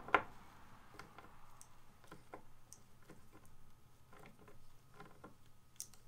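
Wood screw being driven by hand with a Phillips screwdriver through a plastic skateboard rail into the wooden deck: one sharp click at the start, then faint, irregular clicks and ticks as the screw is turned.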